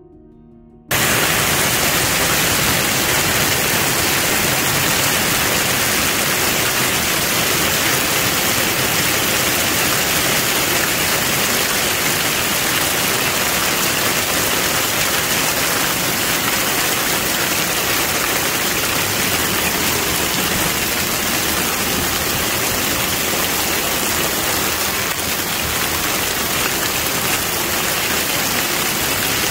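A hailstorm with heavy rain pelting down on a garden, a dense, steady din that starts suddenly about a second in.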